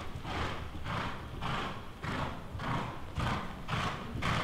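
Horse cantering on sand footing: muffled beats about twice a second, in the rhythm of its stride.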